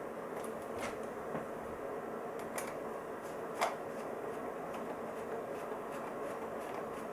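Steady whir of an electric space heater's fan, with a few light clicks and taps from wing parts being handled; the sharpest click comes about three and a half seconds in.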